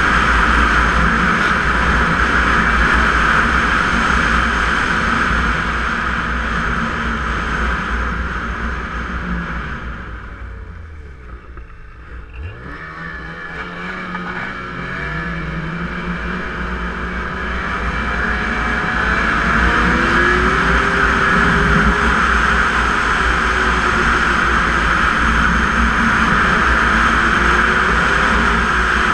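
Snowmobile running along a trail at speed, its engine and track noise loud and steady. The engine note drops and the sound fades about ten seconds in as the sled slows right down, then the note climbs again as it picks back up to speed.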